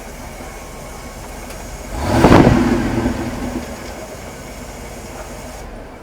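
1988 Rolls-Royce Corniche II's 6.75-litre V8 idling, with one quick rev about two seconds in that falls back to idle.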